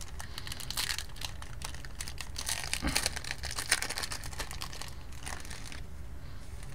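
Plastic wrapper of a hockey card pack being torn open and crinkled by hand, a dense run of crackles that stops near the end.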